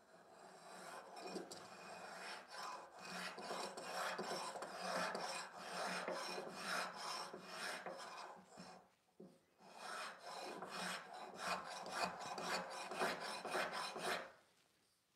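Veritas flat-bottom spokeshave shaving a wooden bench leg: a quick run of short rasping strokes, with a brief pause a little past halfway, stopping about a second before the end.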